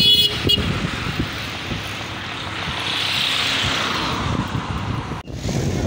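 Road traffic noise. A vehicle horn sounds briefly at the start, then a passing vehicle swells and fades over a few seconds above a steady low rumble.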